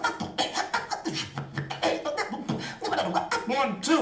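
A beatboxer performing with the voice alone: quick vocal bass kicks and snares, with short rising and falling pitch sweeps near the end that imitate turntable scratches.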